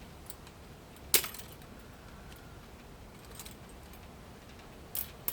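Small metal parts of an electric typewriter clinking and clicking as it is taken apart by hand. One sharp metallic click with a short ring comes about a second in, and a few fainter clicks follow near the end.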